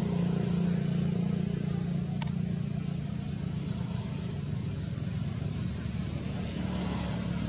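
Steady low rumble of an engine running, with one short click about two seconds in.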